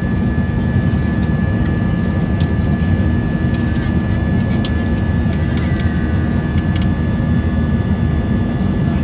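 Cabin noise inside an Airbus A320 climbing after take-off: the steady low roar of the jet engines and rushing air, with a thin steady high whine above it and a few faint ticks.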